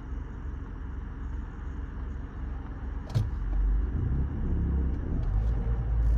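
2019 Toyota Corolla 2.0 rolling slowly with a low rumbling noise that grows louder after a single click about three seconds in. This is the grinding noise under investigation, which the driver finds stops in reverse and rises when driving forward.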